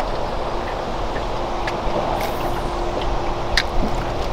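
Wind buffeting the microphone on an open boat, a steady rushing noise with a low rumble, under a faint steady hum and a few light knocks.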